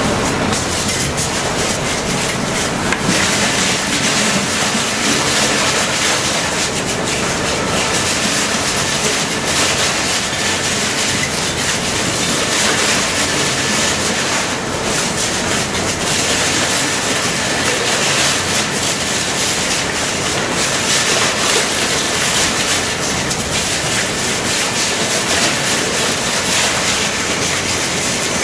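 SSI Dual-Shear M100 twin-shaft shear shredder cutting up car and truck tires: a loud, steady grinding clatter of rubber being sheared and chunks tumbling, without a break.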